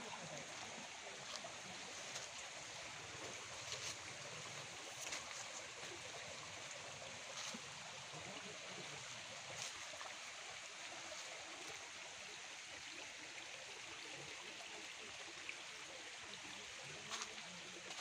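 Steady rushing and babbling of a small forest stream, with a few faint clicks.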